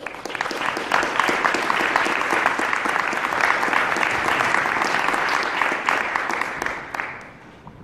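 Audience applauding: dense clapping that starts at once, holds steady, then dies away about seven seconds in.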